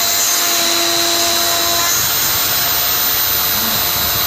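A 3-axis CNC milling machine's spindle running steadily at speed as it mills, a constant high whine over a loud hiss. A lower hum with overtones underneath drops out about two seconds in.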